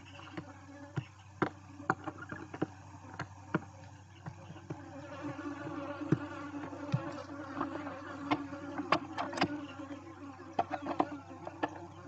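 A steady low buzzing hum, fuller in the middle, with many sharp clicks and scratches from barn owls and their downy owlets shifting about on the nest floor.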